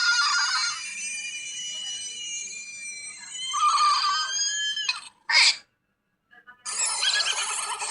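Sped-up cartoon soundtrack: high-pitched, squealing voice-like sounds mixed with music. A single short, sharp sound comes about five seconds in, followed by about a second of silence before the squealing resumes.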